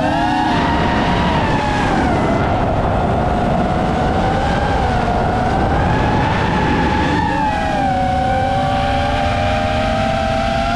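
Seven-inch FPV quadcopter's motors and propellers whining in flight, the pitch wavering up and down with throttle and shifting to a different, steadier tone about seven seconds in.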